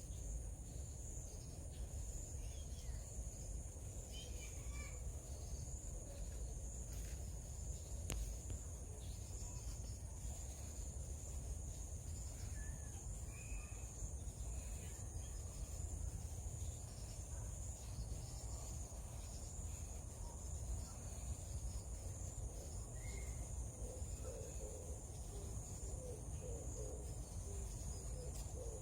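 Steady high-pitched drone of insects calling in the grass, over a constant low rumble, with a few faint short chirps.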